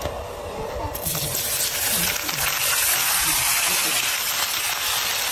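A steady hiss that sets in about a second in and holds without a break.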